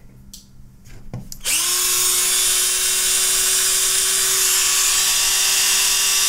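Wakyme cordless drill-driver, said to have a brushless motor, spinning up about a second and a half in after a couple of light clicks. It quickly rises in pitch, then runs on as a steady, loud whine at constant speed.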